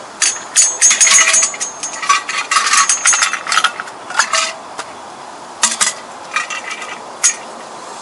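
Ice cubes rattling and clinking as they are tipped out of a stainless insulated jug into a cup: a dense run of rattles over the first few seconds, then a few single clinks.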